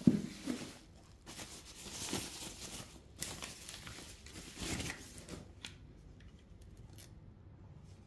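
Plastic packaging rustling and tearing in several bursts, with a sharp knock at the start and a few light clicks near the end: wrapping being pulled off vacuum cleaner attachments.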